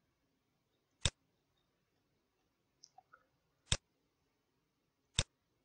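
Three sharp, single computer mouse clicks, irregularly spaced about one to two and a half seconds apart, with a few faint small ticks between the second and third.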